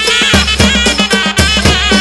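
Background music with a quick, steady drum beat under a sustained melody.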